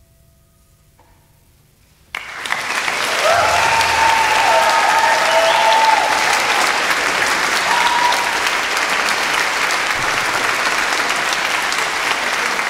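A faint held tone dies away, then about two seconds in a concert audience breaks into loud, sustained applause, with a few long cheers carrying over it.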